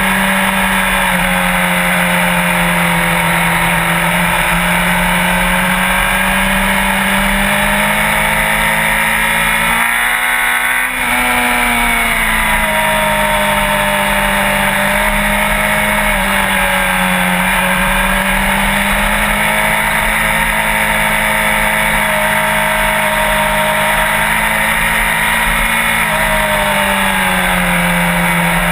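Motorcycle engine running at a steady cruise, its pitch drifting gently with speed. About ten seconds in the revs climb briefly, then settle back.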